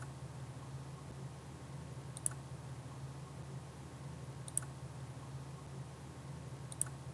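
Four sharp computer mouse clicks, about two seconds apart, over a faint steady low hum.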